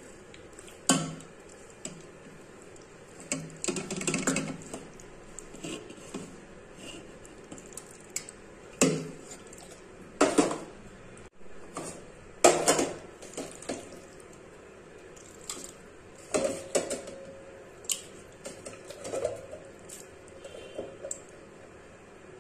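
Marinated raw chicken pieces being tipped from a steel bowl into an aluminium pressure cooker: irregular metal clanks and scrapes against the pot, with soft wet thuds of the meat landing.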